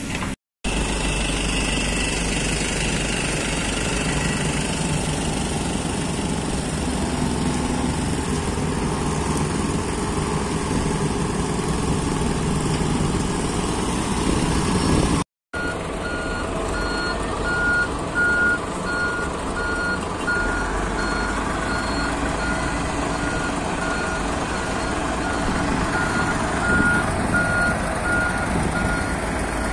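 Heavy earthmoving machinery working: the large diesel engines of an articulated dump truck and a loader run steadily. From about halfway on, a reversing alarm beeps in a steady, even rhythm.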